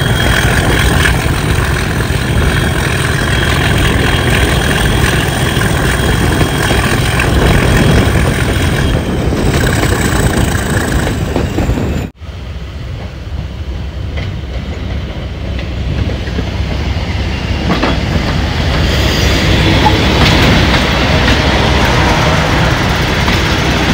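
Class 37 diesel locomotive 37227 and its English Electric V12 engine working hard, heard from the train it is hauling: engine thrash with a steady high whine over it and wheels clicking over the rail joints. About halfway through the sound cuts off abruptly to the locomotive heard from beside the track, quieter at first and growing louder near the end.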